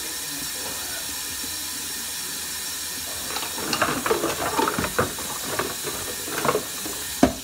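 Kitchen faucet running steadily into a stainless steel sink. From about three seconds in, dishes and plastic containers clatter and knock as they are washed under it.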